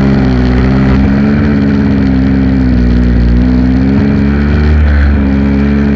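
Small two-stroke gas engine of a Redcat Rampage MT Beast 1/5-scale RC monster truck idling while the truck stands still, heard close up from on board. The idle runs loud and steady, its pitch wavering slightly.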